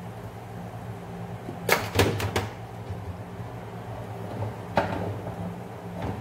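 Kitchen clatter of cookware and utensils handled at a counter: a quick run of four sharp knocks about two seconds in and one more near five seconds, over a steady low hum.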